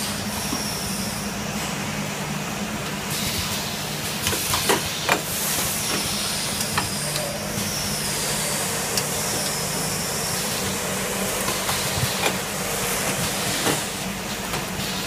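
Automatic paper-towel band saw and plastic-bag packing machine running: a steady low motor hum under a hiss, with high whines that fall in pitch every few seconds and sharp mechanical clacks scattered through.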